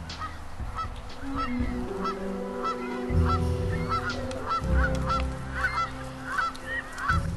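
A flock of geese honking over and over, about three calls a second, with wind rumbling on the microphone now and then beneath them.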